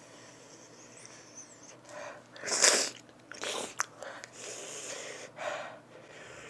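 A woman huffing and blowing air out through her open mouth, several hard breaths with a couple of mouth clicks, from the chilli burn of extremely hot spicy peanuts. The loudest breath comes about two and a half seconds in.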